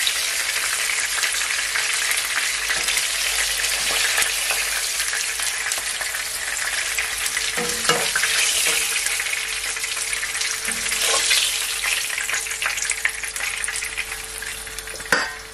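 Chicken legs and thighs frying in hot oil in a pot: a steady crackling sizzle, broken by a few brief knocks as pieces are lifted out. The sizzle fades near the end.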